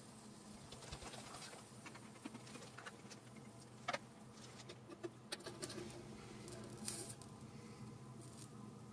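Faint scattered ticks and crackles of tiny pieces of food cooking on a miniature metal griddle, over a low steady hum.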